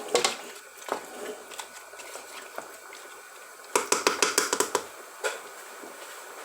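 A spoon clinking and scraping against a cooking pot as tomato stew is stirred. A little under four seconds in comes a quick run of about ten sharp clinks lasting about a second, then one more.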